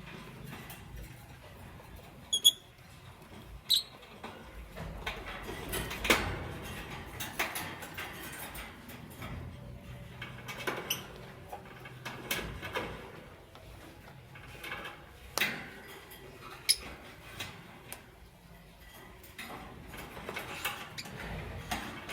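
Lovebirds: two short, high chirps in the first few seconds, then scattered clicks, scratches and rustling as the birds move about.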